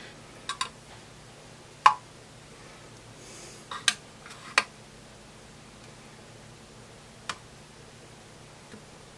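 Scattered light clicks and taps, about half a dozen at uneven intervals with the sharpest about two and four seconds in, as rubber anti-vibration fan mounts are worked and pulled through the holes of an aluminium power-supply casing. A faint steady low hum runs underneath.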